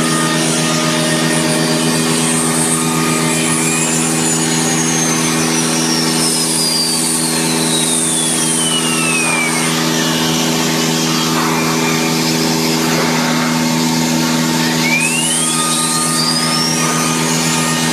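A steady mechanical drone from a motor or engine running at constant speed. A faint whistle slowly falls in pitch over several seconds, and near the end another one rises.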